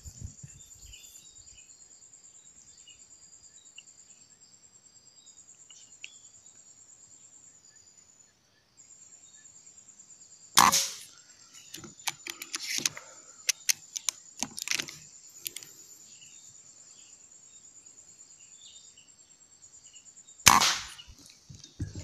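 Two rifle shots, each a single sharp crack, the first about ten seconds in and the second near the end. A run of lighter clicks follows the first shot. A steady high insect buzz goes on underneath. The shots are aimed at spotted doves, and the second is followed by the call of a hit.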